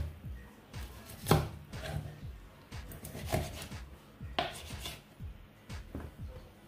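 Kitchen knife cutting through a raw whole chicken on a wooden cutting board. The blade knocks against the board a few times, loudest about a second in.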